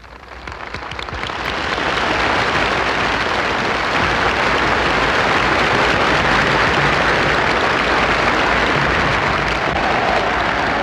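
A large crowd applauding, the clapping swelling over the first couple of seconds and then holding steady.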